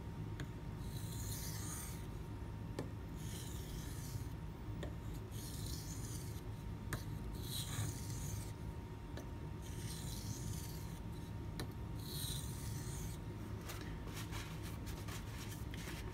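Knife blade stroked across a 320-grit water stone with light pressure, a rasping scrape about every two seconds, to break the burr off the edge. Near the end comes a quick run of light ticks.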